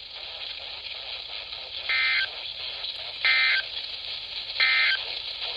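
Three short warbling data bursts of an Emergency Alert System end-of-message code, heard through a NOAA Weather Radio receiver over its steady static hiss. The bursts are about 1.3 s apart and each lasts about a third of a second. They mark the end of the broadcast alert.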